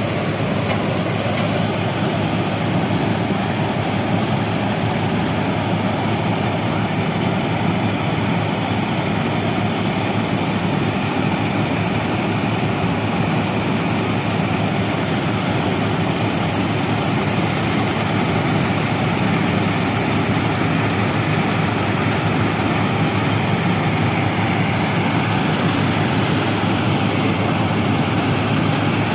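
Plasser India FRM-85F track formation rehabilitation machine working, a loud, steady machine noise of engines and moving machinery that holds even throughout.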